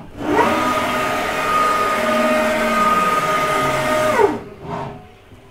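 Axis drives of a Haase ALS1208 CNC router moving the gantry in rapid traverse toward the tool-length sensor. A whine rises as the axes speed up, holds steady for about four seconds, then falls away as the move stops. A brief second, shorter move follows near the end.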